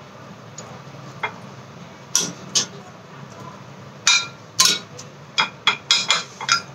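Silicone pastry brush dabbing thick masala paste in a glass dish, knocking against the glass: about ten sharp clinks, a few early and a quick run in the second half.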